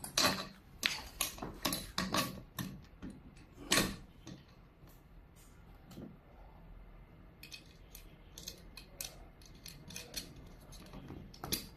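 Irregular clicks and light knocks of small frame hardware (screws, caps, fittings) being handled and fitted, louder in the first four seconds, then fainter and sparser.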